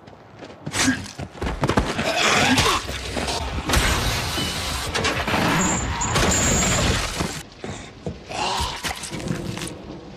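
Fight and kill sound effects cut together in quick succession: crashes, thuds and smashing impacts, changing abruptly from one clip to the next.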